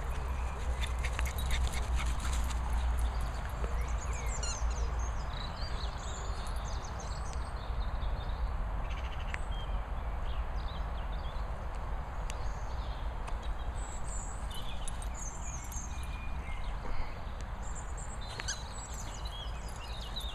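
Two dogs, a Chug and a French Bulldog, playing together, with short high squeaks and chirps scattered throughout. A steady low rumble of wind on the microphone runs underneath.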